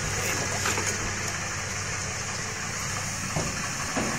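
Steady low hum of a running engine, with a constant hiss over it.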